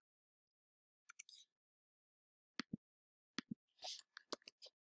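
Faint computer mouse and keyboard clicks against near silence: a few around a second in, then a quicker cluster in the second half.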